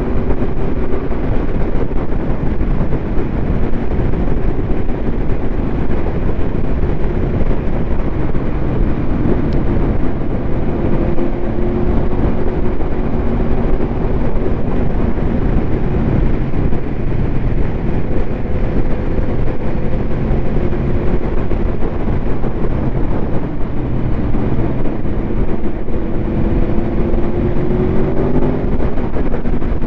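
Motorcycle riding at steady speed: wind rushing over the microphone over the steady drone of a 2021 Aprilia Tuono V4's V4 engine through an SC Project SC1-R slip-on exhaust. The engine note rises slightly near the end.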